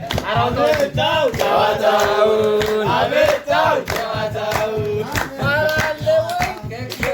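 A group of people singing and chanting together in several overlapping voices, with evenly spaced handclaps keeping the beat.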